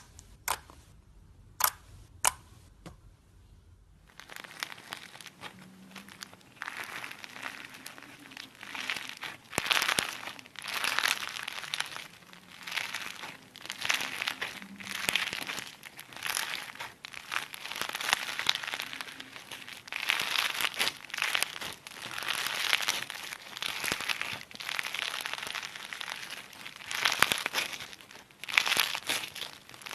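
A few sharp clicks, then slime being squeezed and worked by hand, crackling and crinkling in irregular swells.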